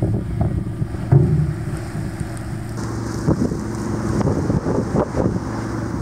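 A ship's engine hums steadily, with wind buffeting the microphone. A heavy thump comes about a second in, and a few lighter knocks follow later.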